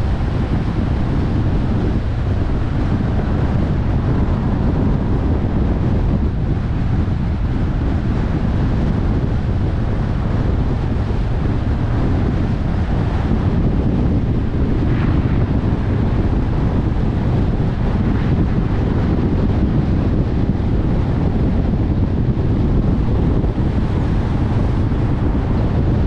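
Car driving along: a steady low rumble of tyres on the road and the engine.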